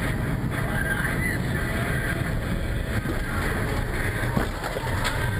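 Car driving on a wet street, heard from inside the cabin: steady engine rumble and tyre noise, with a couple of faint clicks near the end.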